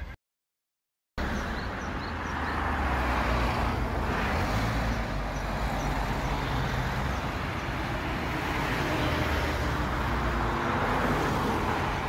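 Road traffic: cars driving past on a street, a steady wash of engine and tyre noise that swells and eases as vehicles go by. The sound drops out completely for about a second near the start.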